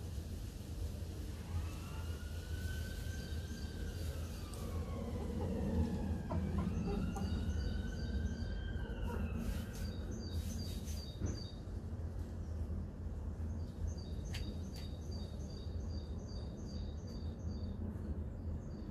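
An emergency-vehicle siren wails in two long rising-and-falling sweeps over a steady low background rumble. In the second half, a small bird chirps repeatedly in short, quick high notes.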